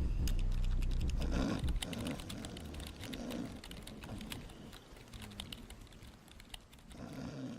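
Rapid computer-keyboard typing, a dense run of key clicks, over a heavy bass-boosted boom that cuts off about a second and a half in. Several loud snores rise and fall in between.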